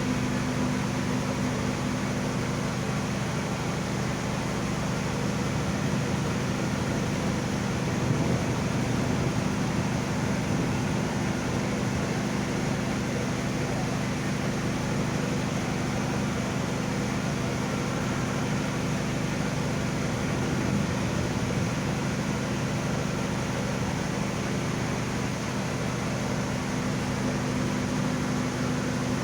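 Steady mechanical drone of a large passenger ship's engines and machinery, a constant low hum under an even rushing noise.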